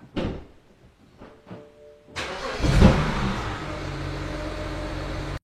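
A thump, then the 2008 BMW 335xi's twin-turbo 3.0-litre inline-six cranks and starts about two seconds in, flaring briefly before settling into a steady idle.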